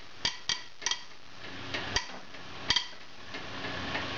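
Sharp metallic clicks from the socket and breaker bar as a Volvo 240 cylinder head bolt is pulled a quarter turn under heavy load in the final tightening stage. About five irregularly spaced clicks come in the first three seconds.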